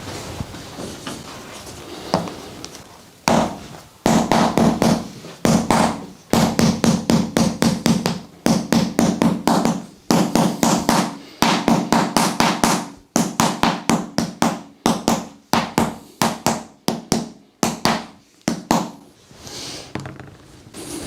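Rapid percussive massage strikes on the body, about four or five a second, in runs with short breaks. They start about three seconds in and die away near the end.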